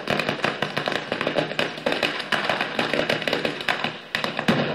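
A traca, a string of firecrackers laid on the ground, going off in a rapid, continuous run of sharp bangs. It eases briefly near the end, then a last loud burst follows.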